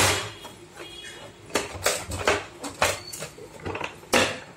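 Plastic housing of an Epson L380 printer clicking and knocking as its side panel is worked loose by hand: a run of about six or seven sharp clicks at uneven intervals, the loudest near the end.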